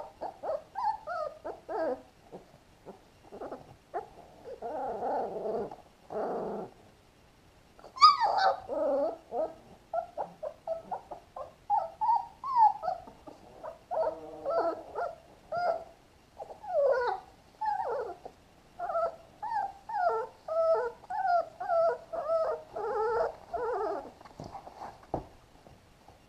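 Three-week-old puppies whimpering and whining: a long string of short, high cries that bend up and down in pitch, one after another, stopping near the end.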